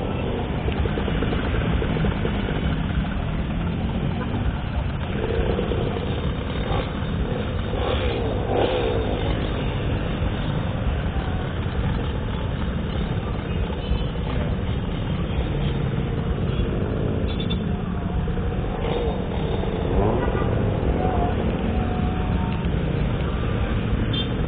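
Riding noise from a 50cc minibike: heavy wind rumble on the microphone over the small engine running, with surrounding traffic and a few brief engine-pitch glides.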